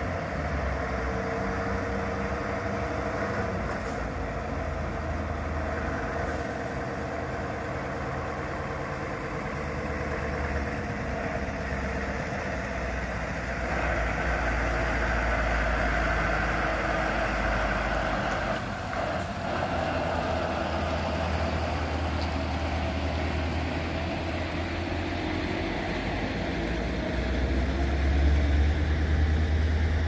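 Scania heavy-haul truck's diesel engine running at low speed as it tows a long multi-axle trailer through a turn, a steady low rumble that grows louder as the rig passes, loudest near the end.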